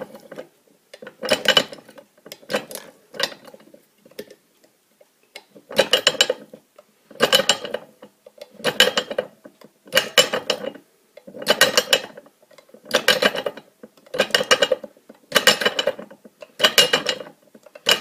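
Arbor press pressing the pins out of a spade pin connector held in locking pliers: about a dozen short mechanical bursts, one with each stroke, roughly every second and a half.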